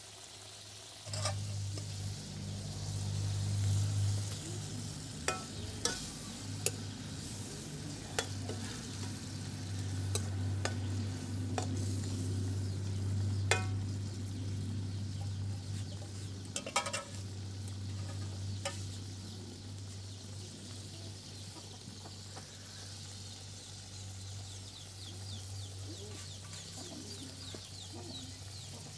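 Curry bubbling and sizzling in a metal kadai while a wooden spatula stirs and scrapes it, with sharp knocks now and then. A steady low hum starts about a second in and runs underneath.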